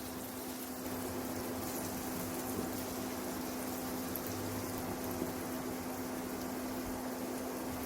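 Rice-and-moong-dal paniyaram batter sizzling steadily in hot oil in the cavities of a paniyaram pan as it is poured in, over a steady low hum.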